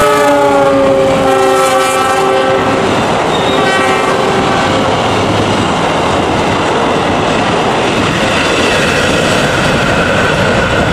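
KAI CC 206 diesel-electric locomotive sounding its horn in a long blast that drops slightly in pitch as it passes, then a shorter second blast about three and a half seconds in. After that the passenger coaches roll past with steady clickety-clack over the rail joints.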